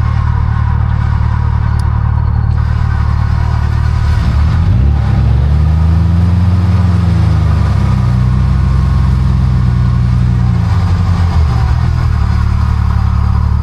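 Old Jeep Cherokee's engine running loudly off-road, revving up about four seconds in and easing back down a few seconds later as it is driven forward.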